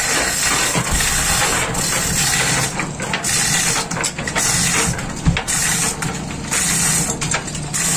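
Chain hoist ratcheting and its chains rattling as a heavy marine gearbox is lowered on them, with a single sharp knock about five seconds in, over a steady hum.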